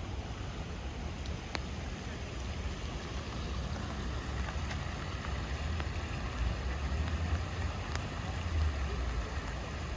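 Steady rain on wet city streets, a continuous hiss, over a low rumble that swells and fades, with a few faint ticks.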